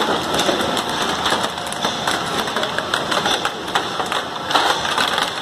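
Hard-candy production machinery running, with a dense, irregular clicking and clattering of small hard candies dropping off a conveyor belt into a plastic crate.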